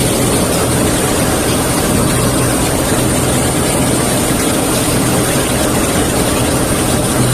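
Agricultural spray plane's engine and airflow heard from inside the cockpit: a loud, steady drone with a constant low hum and a high hiss, unchanging throughout.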